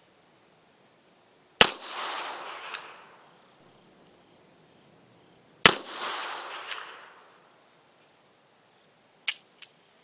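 Two shots from an 8mm Austrian M1898 Rast & Gasser revolver fired single action, about four seconds apart, each followed by an echo that trails away. Two short sharp clicks come near the end.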